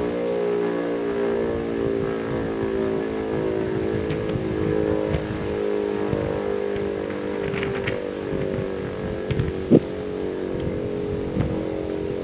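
E57 electro-mechanical siren, driven by a 5 kW three-phase motor, sounding a steady chord-like howl that wavers only slightly in pitch. An irregular low rumble runs underneath, and a short thump comes near the end.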